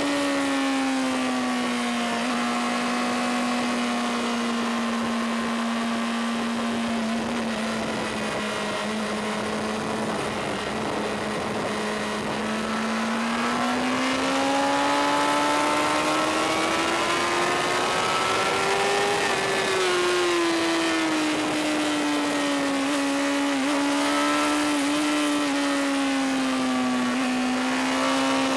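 Honda CBR600RR inline-four sportbike engine running at high revs, heard on board at track speed over a steady rush of wind. The engine pitch drops at first and holds level for about ten seconds. It then climbs for several seconds to a peak, falls back, and rises slightly again near the end.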